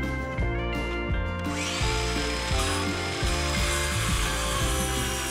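Background music, with a power tool starting up about a second and a half in and running steadily, a hiss with a faint whine over the music.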